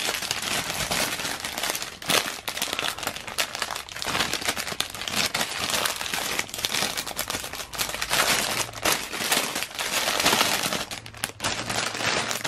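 Clear plastic poly bag crinkling and rustling continuously as it is handled and opened and a folded T-shirt is slid out of it.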